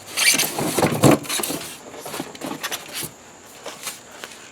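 Cardboard box and packing material rustling and scraping as the box is unpacked, loudest in the first second and a half, then scattered clicks and scrapes.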